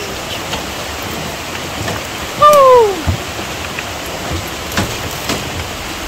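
Steady rush of a rocky stream fed by Dudhsagar waterfall, with a person's short call, falling in pitch, about two and a half seconds in.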